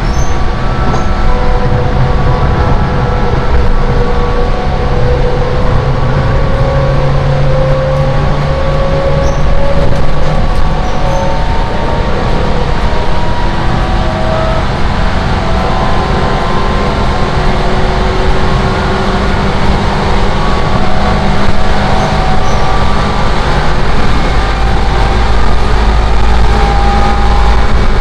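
Loud running noise of a Seibu 10000 series Red Arrow limited express heard inside the passenger car: a steady, deep rumble with faint whining tones that slowly rise and fall. The noise is loud enough to mask talk, snoring and announcements.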